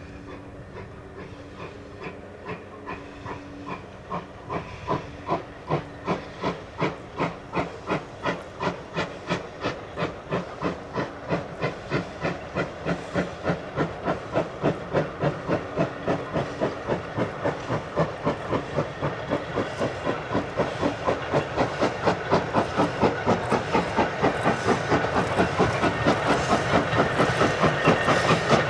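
GWR Hall-class steam locomotive 4930 'Hagley Hall' working a goods train, its exhaust beating in a steady rhythm of about two chuffs a second that grows louder as it approaches.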